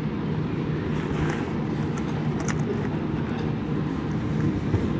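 Steady low rumble and hum of background noise, with a few faint clicks scattered through it.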